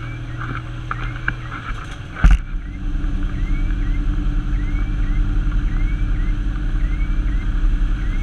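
Fire engine-tanker driving on the road, heard from inside the cab: a steady low engine and road rumble. A sharp loud bump comes about two seconds in, and after it the rumble is louder. A faint short rising tone repeats about once a second.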